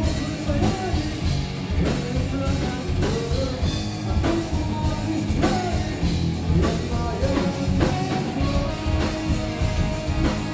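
Rock band playing, a singer's voice over electric guitars, bass and a drum kit with a steady beat.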